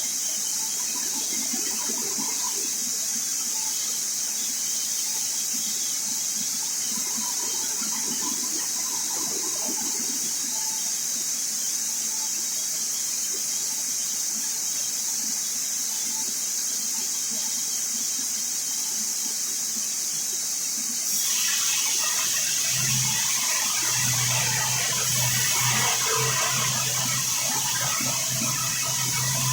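Twin-blade parallel vertical band sawmill running with a steady high hiss and squeal. About 21 seconds in it grows louder and coarser, and a steady low hum joins shortly after.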